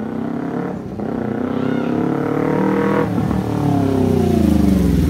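Kawasaki Ninja 300 parallel-twin running through an SC aftermarket exhaust with its sound-reducing baffle removed. It accelerates and shifts up through the gears: the engine note climbs, drops at a shift about a second in and again about three seconds in, and grows louder as the bike approaches.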